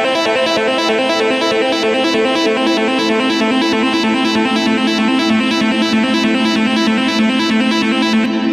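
Instrumental background music with a steady beat, cutting off abruptly at the end.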